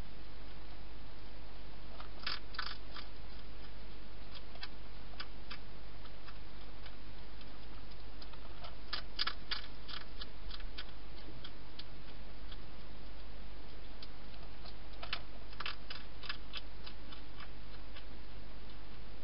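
Wild hedgehog eating from a dish inside a plastic feeding box, crunching its food in sharp clicks. The clicks come in three bunched runs, with single clicks between them, over a steady low hum.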